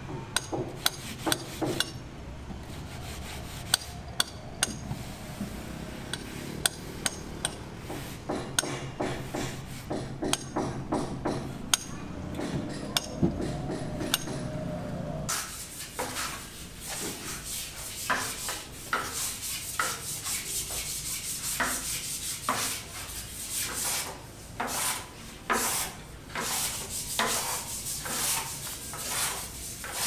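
Irregular sharp taps and clicks, then from about halfway a hand float rubbing and scraping over cement render on a wall in repeated strokes.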